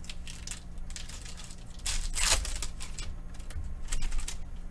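Foil wrapper of a trading-card pack being torn open and crinkled by hand, in short crackling bursts, the loudest about two seconds in.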